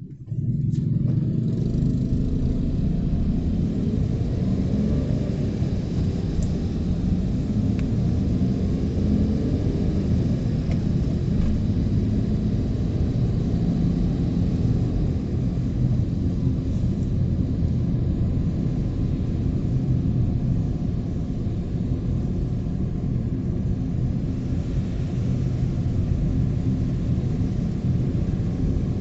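Car engine and tyre noise on a wet road, heard from inside the cabin as the car pulls away and drives on: a loud, steady low rumble that comes in abruptly at the start.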